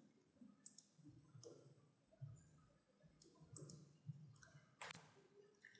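Faint computer mouse clicks, a handful scattered through near silence.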